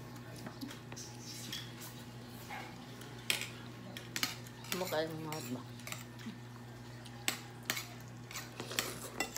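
Spoons and a fork clinking and tapping against glass and ceramic bowls during a meal of soup, in scattered sharp taps that grow more frequent in the second half.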